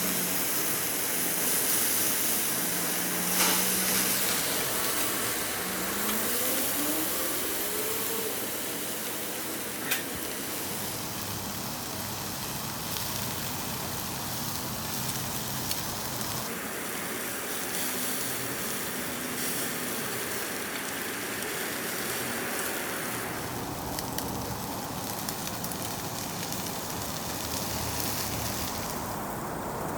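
Steak slices sizzling over a charcoal grill: a steady hiss, with two sharp clicks in the first ten seconds.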